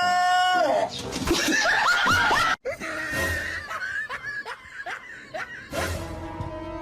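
A long held high-pitched call that falls away within the first second, then people laughing in short repeated bursts.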